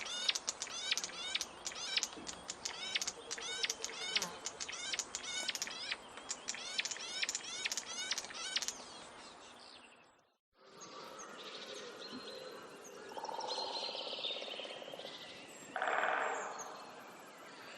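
A dense chorus of small birds chirping rapidly, many quick falling chirps a second, which stops abruptly about ten seconds in. After a moment of silence, a different recording follows with scattered bird calls and one louder call near the end.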